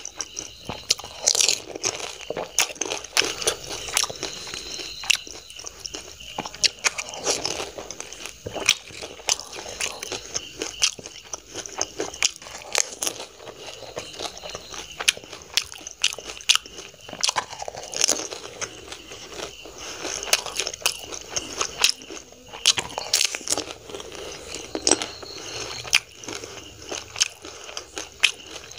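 Close-miked crunching and chewing of crisp fried pani puri shells filled with tamarind water, bitten one after another, with frequent sharp, irregular crunches.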